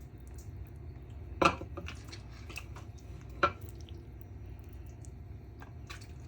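Serving spoon dishing out thick soup, knocking sharply against the dish twice, about two seconds apart, with softer scrapes and wet clicks between.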